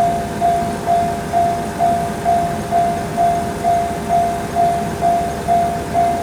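Japanese railroad level-crossing warning alarm ringing its "kan-kan" tone: one high ding repeated evenly about twice a second, over a steady lower hum.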